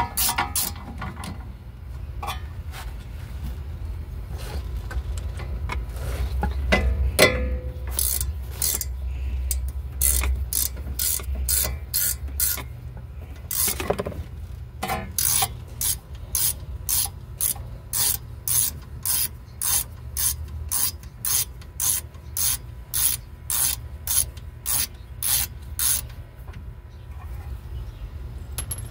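Ratchet wrench clicking as it turns a disc-brake caliper bolt: a few scattered clicks at first, then an even run of about two clicks a second through the second half, stopping a few seconds before the end.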